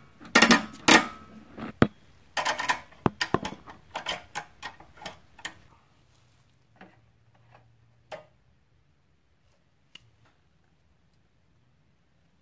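Light clicks and knocks of small plastic and metal carburetor parts being handled and fitted back onto the engine, close together for about six seconds, then a few scattered taps.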